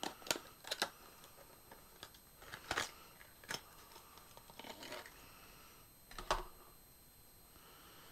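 Clear plastic lure packaging being opened and handled, giving a string of sharp clicks and crinkles as a plastic squarebill crankbait is worked out of it.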